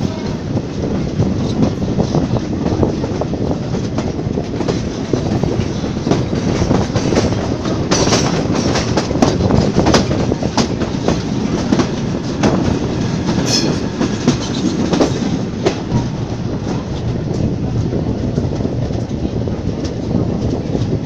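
Vintage passenger coaches running along the track, heard from an open carriage window: a steady rumble of wheels on rail with rapid clickety-clack as the wheels pass over rail joints and points, and a couple of sharper metallic clicks midway.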